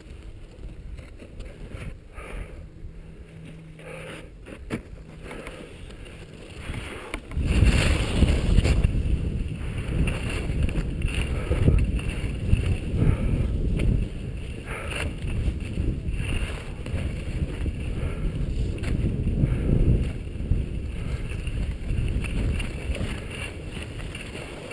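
Wind buffeting a helmet-mounted camera's microphone during a downhill run on a groomed snow slope, with the hiss and scrape of sliding on snow. The rush gets much louder about seven seconds in and stays loud.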